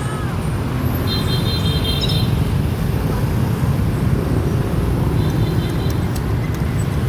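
Steady rumble of road traffic, with brief high-pitched tones twice: about a second in and again after five seconds.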